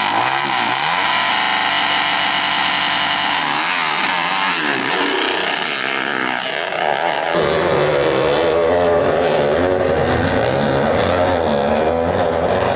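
Dirt bike engines revving hard at full throttle as the bikes launch and climb a steep hill, the pitch rising and falling with the throttle. The sound changes abruptly about seven seconds in.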